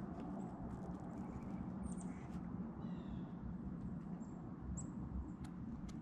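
Quiet outdoor ambience: a steady low rumble with a few faint, short, high bird chirps and light ticks scattered through it.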